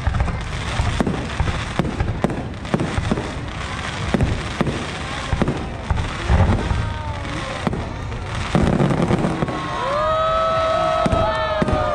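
Fireworks display going off: a steady run of bangs and crackles, joined near the end by several long whistling tones that slowly fall in pitch.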